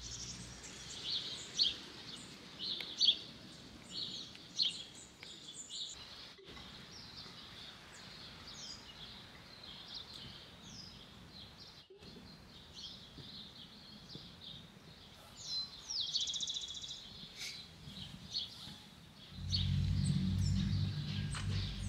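Small songbirds chirping and trilling over and over. Near the end a louder low steady rumble comes in abruptly.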